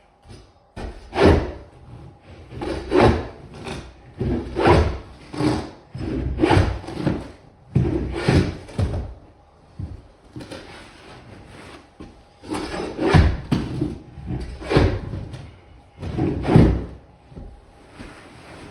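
Glued-down commercial carpet being pried and ripped up from the floor, in a run of rough tearing and scraping strokes every second or two, with a short pause past the middle.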